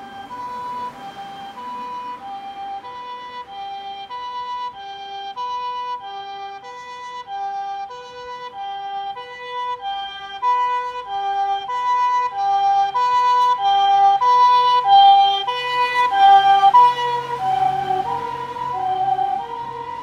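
Japanese ambulance's harmonic siren: an electronic two-note pee-po, each note sounded as a chord, alternating steadily. It grows louder as the ambulance approaches and drops slightly in pitch as it passes, about three-quarters of the way through. The vehicle's low running hum is heard as it goes by.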